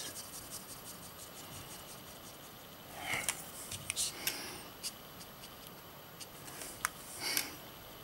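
Faint scratching of a paintbrush and marker tip working colour on paper, with a few light clicks and soft rustles from handling the marker and brush.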